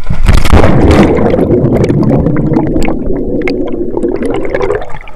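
Loud water splashing and gurgling that starts suddenly, with a dense rush and many small crackles, and drops off near the end.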